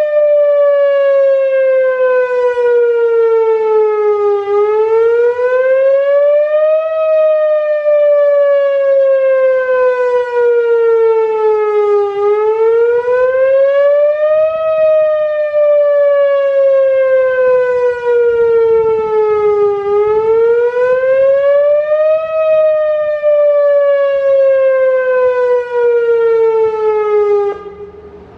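Whelen Omni-Alert OA-2 two-cell electronic outdoor warning siren sounding its wail on a routine test: a loud tone that rises in pitch for about two and a half seconds, then falls for about five, repeating roughly every seven to eight seconds. It cuts off about a second before the end, leaving wind noise.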